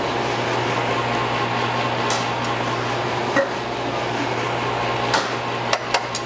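Steady hiss and hum of a commercial kitchen's range and pots. Metal tongs and a pan clink once in the middle, then several times near the end as the fish fillet is carried to the stove and set in the pan.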